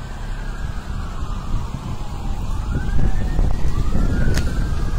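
Sirens wailing: two slow rising-and-falling tones that overlap out of step, over a steady low rumble. A single sharp click about four seconds in.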